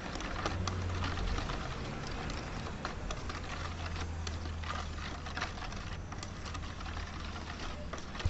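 A spoon stirring thick flour batter in a stainless steel bowl, with irregular clicks and scrapes of the spoon against the metal bowl, over a steady low hum.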